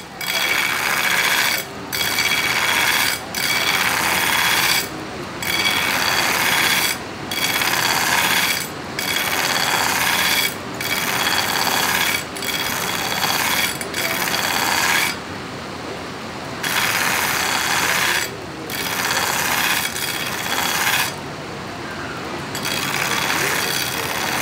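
Belt grinder grinding a steel knife blade to a distal taper, the blade thinning gradually toward the tip. It goes in repeated passes of about one to two seconds, each broken by a brief drop as the blade lifts off the belt while the belt keeps running, with two longer breaks in the second half.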